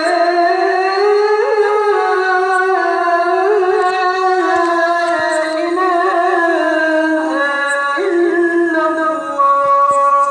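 A man's voice chanting the azan (Islamic call to prayer) into a microphone, an unbroken melismatic phrase whose pitch winds slowly up and down. Near the end it swells louder onto one long, steady held note.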